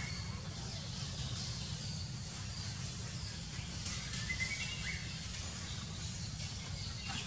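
Outdoor ambience: a steady low rumble with a faint high hiss, and a few short rising bird chirps about four to five seconds in.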